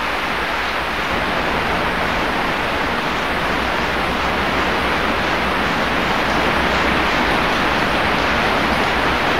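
Heavy rain falling steadily, a dense, even rush of noise with no single drops or thunder standing out.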